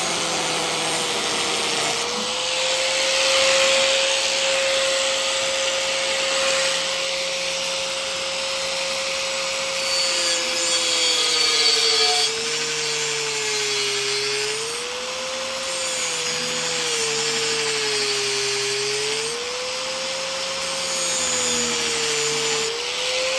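Electric grinder grinding metal off an intake part: a steady motor whine over a hissing rasp. In the second half the whine sags in pitch several times as the tool is bore into the work, then picks back up.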